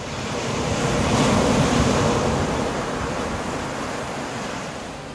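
Ocean surf: one rush of noise that swells over about a second and a half, then slowly dies away.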